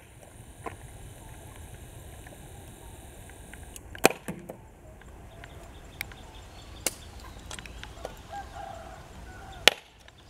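Gloved hands handling service cables and plastic cable clips against a concrete electricity pole: a handful of separate sharp clicks and knocks, the loudest just before the end. A rooster crows faintly about eight seconds in.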